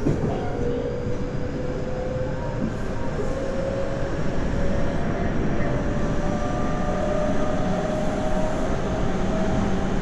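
Tobu 9050 series electric train running: a steady rumble of wheels on rail with a motor whine that rises slowly in pitch.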